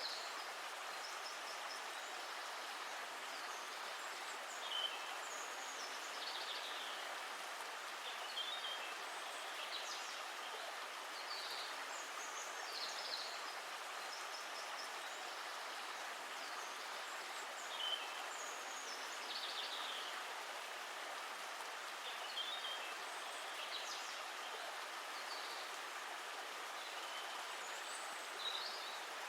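Stream water flowing steadily, with birds chirping briefly now and then over it.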